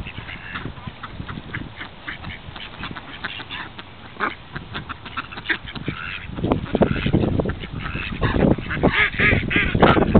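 A flock of ducks, mallards among them, quacking in many short overlapping calls, which grow louder and busier about six seconds in.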